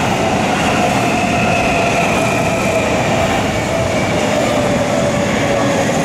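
Seibu Ikebukuro Line electric commuter trains passing over a level crossing. The running noise is loud and steady, with a whine that slowly drops in pitch throughout.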